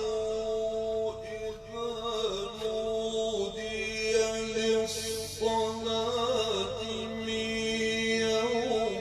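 A man's voice chanting Quran recitation in the drawn-out melodic style, holding long notes with wavering ornaments.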